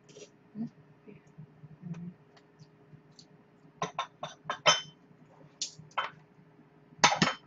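Chopsticks clicking against a bowl and dishes: a quick run of light clicks about four seconds in, a few more after, and a louder clatter near the end.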